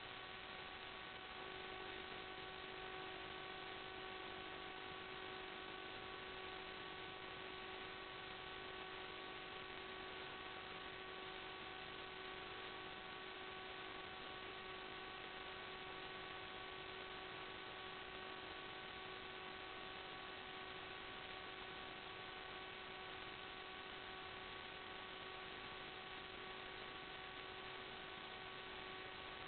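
Steady faint hiss with an electronic hum made of several constant tones; a lower tone joins about a second and a half in. Nothing in it rises or falls.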